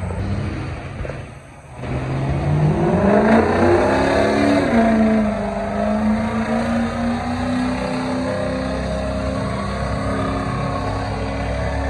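Diesel pulling tractor's engine revving hard under load: the pitch climbs for about two seconds, falls back, then holds steady.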